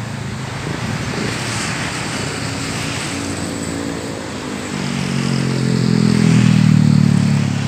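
A motor engine running, a steady low hum of evenly spaced tones that shifts in pitch a little before five seconds in and grows louder around six to seven seconds in.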